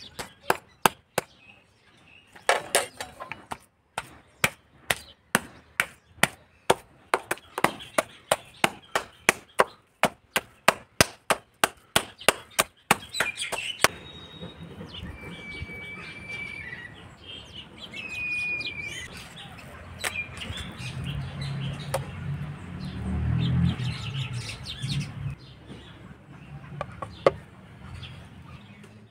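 Wooden mallet pounding raw chicken meat on a stone slab, steady thudding blows about three a second, to beat the meat into a paste for rista. The pounding stops about halfway through, leaving soft handling sounds and two short bird chirps.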